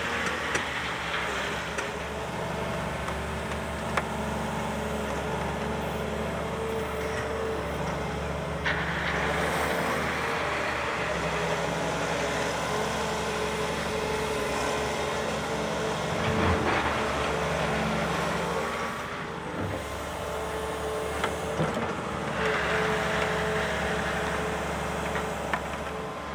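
Volvo ECR 235 CL excavator's diesel engine running steadily as the machine works, swelling under load a few times, with a few sharp knocks.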